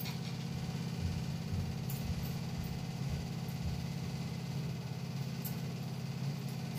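Steady low hum of a running fan motor, with a faint even hiss.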